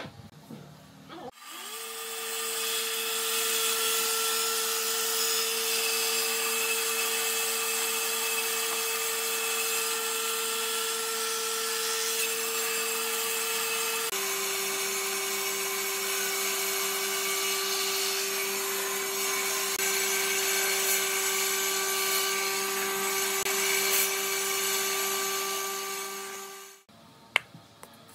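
Table saw running with a steady whine while cutting grooves along wooden boards. It starts about a second in, drops slightly in pitch about halfway through, and winds down near the end.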